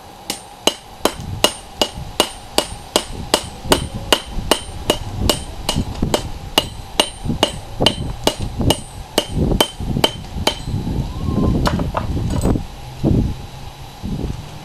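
Blacksmith's hammer forging a railroad spike on an anvil: a steady run of ringing blows, about three a second, that stops about ten seconds in, followed by a few scattered knocks and shuffling.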